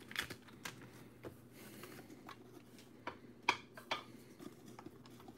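Faint handling sounds of trading cards and a cardboard hobby box: scattered light clicks, taps and rustles as the foam insert is lifted out, with one sharper tap about three and a half seconds in.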